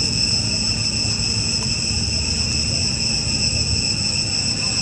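Insects calling in a steady, unbroken high-pitched drone of several layered tones, over a low rumble.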